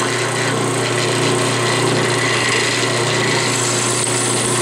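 Benchtop drill press running steadily with an even motor hum as a small bit drills an oil hole through a lathe saddle.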